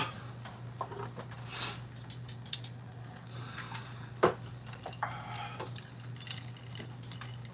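Scattered light clinks and knocks of dishes and utensils on a table over a steady low hum, with the sharpest knock a little past the middle.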